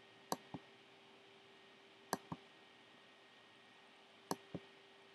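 Computer mouse button clicking: three pairs of quick clicks, about two seconds apart.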